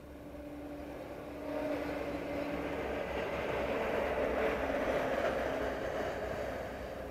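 A vehicle passing out of sight, its engine tone and hiss swelling about a second and a half in, then fading away near the end.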